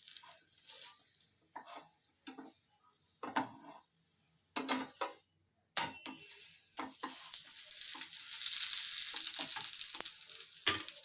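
Roti frying in oil in a pan, crisping on one side. Scattered clicks and scrapes of a utensil against the pan come first, then a steady sizzle swells up over the second half.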